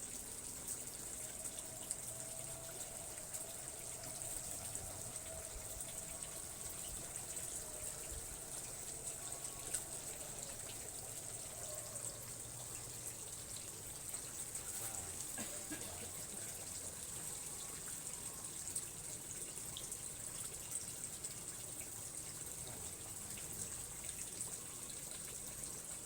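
Steady running water, trickling and gushing without a break, under a constant high hiss.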